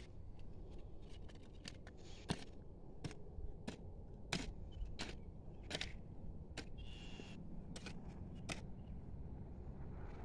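A hoe chopping into dry, stony tilled soil to dig planting holes: a string of short, sharp strikes, about one or two a second.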